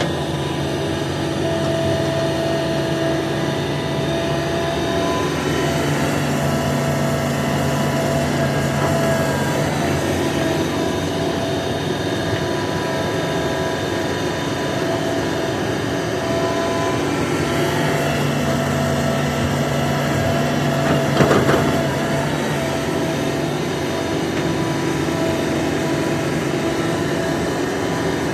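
Hitachi ZAXIS 350H excavator's diesel engine running steadily under working load, its note shifting as the hydraulics take load. A single short clank comes about three quarters of the way through.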